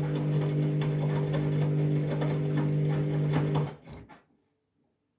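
Candy washing machine running its final rinse: a steady low hum with light clicks, cutting off abruptly a little past halfway.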